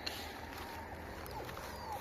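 Steady low hum and hiss with a few faint short squeaks and light clicks.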